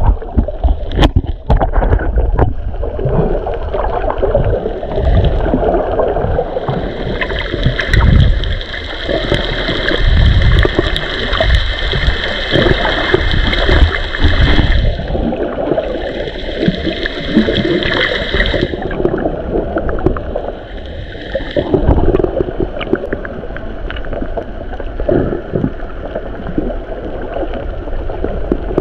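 Underwater sound picked up by a submerged camera: a rushing, gurgling rumble of water, with many small crackling clicks. From about seven seconds in to about eighteen seconds, a higher hiss with faint steady tones is added, with a short break midway.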